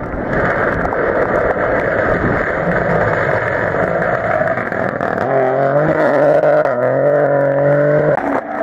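Opel Corsa rally car passing at speed on a wet road: a building rush of tyre spray and engine, then the engine note rising, dipping once about two thirds of the way in and rising again as it pulls away, before stopping abruptly near the end.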